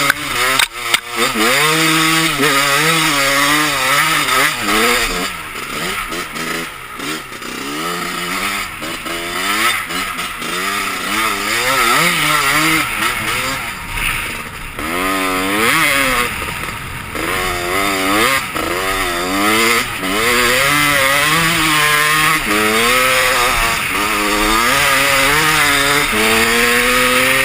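Honda CR250 two-stroke dirt bike engine being ridden, its pitch rising and falling over and over as the throttle is opened and closed. A few sharp knocks come in the first second.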